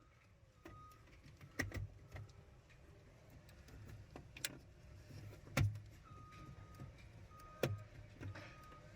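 Plastic terminal blocks being pressed onto a PLC module and snapping into their locks: a scattering of sharp clicks and knocks, the loudest about five and a half seconds in.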